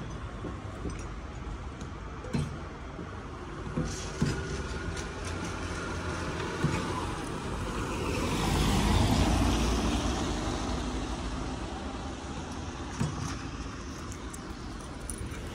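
A car passing on a wet road, its tyres hissing through the water, swelling to a peak about halfway and fading away, over a steady wet-street background with a few light clicks.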